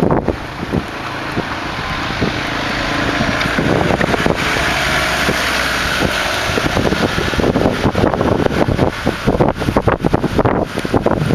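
Wind buffeting the microphone: a loud rushing roar that builds over the first few seconds, broken by many short knocks and crackles in the second half.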